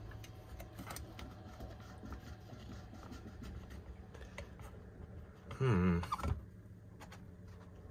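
Diesel fuel filter housing being opened by hand and its pleated paper element pulled out: small clicks and handling noises over a steady low hum. A brief louder sound with a wavering pitch comes about five and a half seconds in as the element comes out. The filter is being checked as the suspected clog that stopped the engine.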